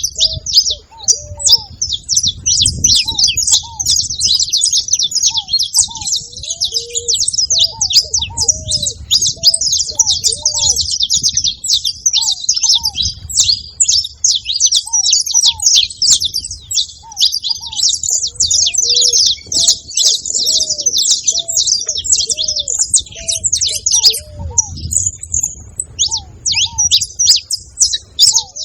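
Several saffron finches singing and chirping together in a dense, continuous jumble of rapid high notes. Lower, repeated arched calls sound underneath.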